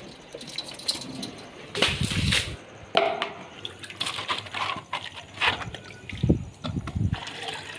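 Water splashing and sloshing in a plastic pigeon water bowl as it is rinsed out by hand, tipped out and refilled. The sound comes as irregular splashes and handling knocks.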